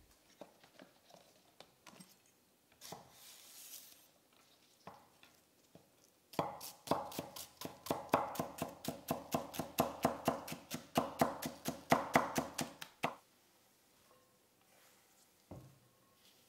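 Chef's knife rapidly slicing spring onions on a wooden cutting board: a steady run of sharp blade strikes on the board, about five a second, lasting some seven seconds. It is preceded by a few light taps as the onions are set down and trimmed, and followed by a single knock near the end.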